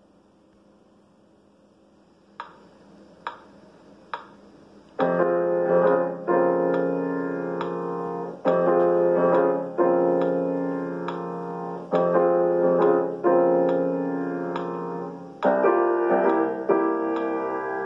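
Piano playing a choir accompaniment: after a couple of seconds of faint room noise come three single high notes, then full sustained chords from about five seconds in, a new chord struck every second or so.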